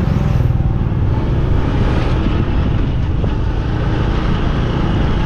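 Motorbike on the move: steady engine and road rumble from riding along a paved road.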